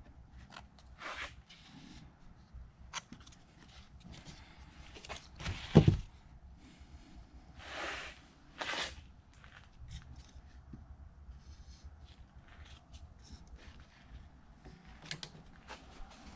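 Workbench handling noises of plastic parts being fitted and glued: scattered clicks and light taps, one loud knock about six seconds in, and two short rustling scrapes around eight and nine seconds.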